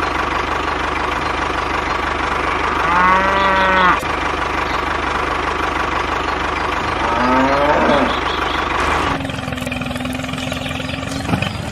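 Engine running with a steady, fast chug, over which a farm animal calls twice: one held call about three seconds in and a bending call near eight seconds. About nine seconds in the chugging drops away, leaving a lighter hum with a steady held tone.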